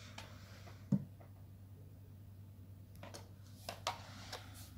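Faint handling noises over a low steady hum: a single knock about a second in, then a few light clicks and rustles near the end as plastic-wrapped items are handled.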